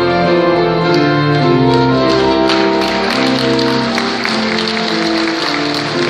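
Piano and organ playing held chords in a medley of patriotic songs. About two and a half seconds in, applause from the congregation starts and continues over the music.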